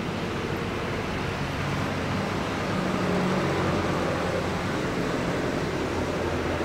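Diesel engine of an approaching heavy intercity bus, a steady low drone that grows a little louder about two to three seconds in.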